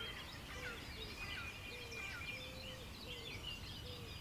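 Dawn chorus: several songbirds chirping and singing at once, with a lower short note repeated several times underneath.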